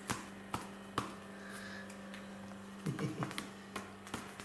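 A hand tapping a hard tiled floor, evenly at about two and a half taps a second at first, then a quick cluster of taps near the middle and two more near the end. A steady low hum lies under it until about the middle.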